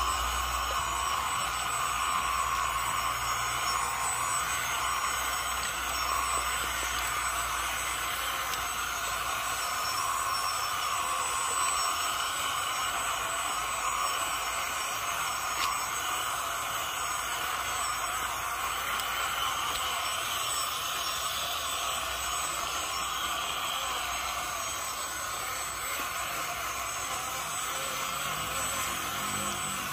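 WPL B16 6x6 RC truck's electric motor and gearbox whining steadily as it drives through muddy water.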